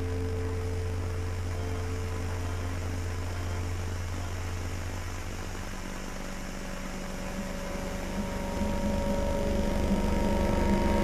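Low droning soundtrack of held tones over a steady deep hum. About six seconds in the hum gives way to a new layer of held tones that swells louder toward the end.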